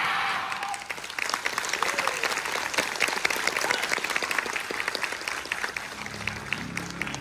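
Audience applauding with steady clapping, after the tail of a loud crash in the music fades out over the first second.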